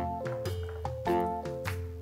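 Background music: a light melody of short ringing notes, two or three a second.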